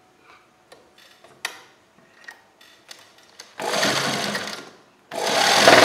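A sewing machine stitching a kurta collar, starting the topstitching along its edge. It runs in two short bursts of about a second each, with a brief pause between them, and the second burst is louder. A few light clicks come before the stitching starts.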